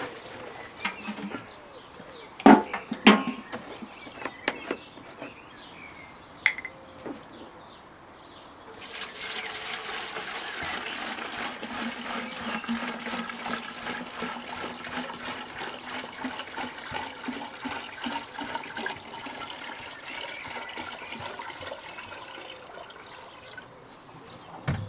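A few knocks and clicks as a plastic jerrycan is handled and opened. From about nine seconds in, liquid manure fertiliser pours steadily out of the jerrycan into a watering can as it fills.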